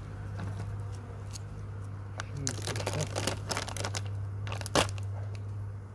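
Plastic bag crinkling and crackling as it is lifted off the top of a beehive, with scraping from a hive tool and one sharp click near the end, over a steady low hum.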